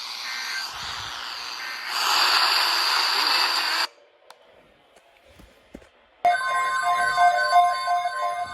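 Radio static hiss, louder about two seconds in, that cuts off suddenly near four seconds. After a short quiet gap, a loud ringing electronic sound with several pitches at once starts about six seconds in.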